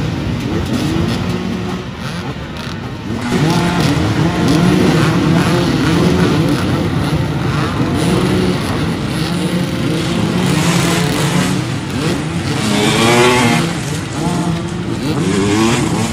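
Many off-road dirt bike engines revving at once, their pitches rising and falling over one another as a jammed pack of riders fights up a steep rocky hill climb. The din swells about three seconds in, and one engine revs up sharply near the end.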